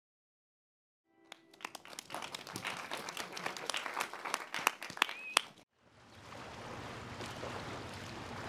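Audience clapping that starts about a second in and builds, with a short whistle near its end, then cuts off abruptly. A steady rushing noise with a low hum takes over for the rest.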